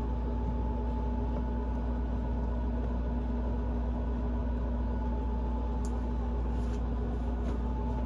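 Steady low hum with several constant tones in it, like a running fan or appliance; a couple of faint clicks near the end.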